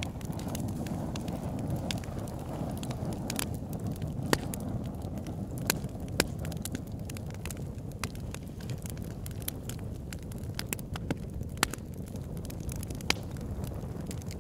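Wood fire crackling, with irregular sharp pops scattered throughout, over a low wind rumble on the microphone.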